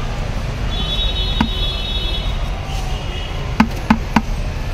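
Metal spoon knocking against a plastic mixing tub while jhal muri is stirred: one knock, then three quick knocks near the end, over a steady low street-traffic rumble.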